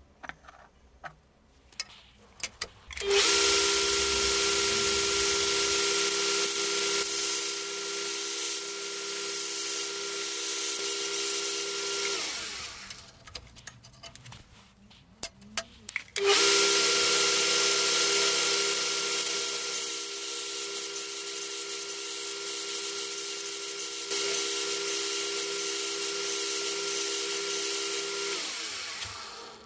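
An electric power tool working on the steel billet in two runs of about ten seconds each, a steady motor hum under a loud hiss of cutting. Each run starts abruptly and winds down at the end, with a few small knocks before and between them.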